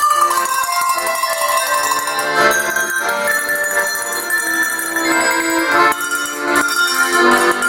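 A tune played on a set of tuned cow bells, with accordion accompaniment holding chords underneath.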